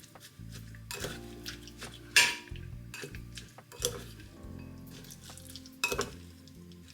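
Cooking utensils clinking and scraping against cookware and dishes, several separate knocks with the sharpest about two seconds in, over soft background music.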